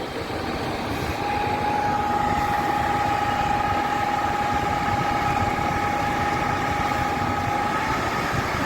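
Heavy construction machinery engines running steadily, with a steady high whine that comes in about a second in and stops near the end.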